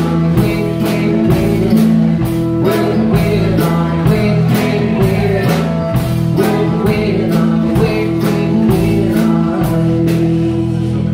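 Live band playing a song: strummed acoustic guitar, electric bass and a drum kit keeping a steady beat of about two strikes a second, with a sung lead vocal.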